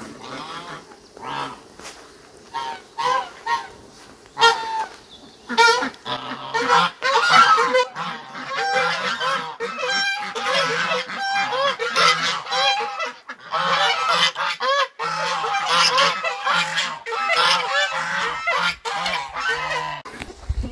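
A flock of white domestic geese honking: a few scattered calls at first, then many geese calling over one another from about six seconds in.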